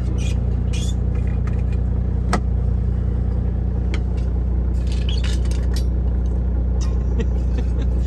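Semi truck's diesel engine idling steadily as a low hum in the cab, with scattered light metallic clinks and clicks of insulated steel water bottles and their screw lids being handled.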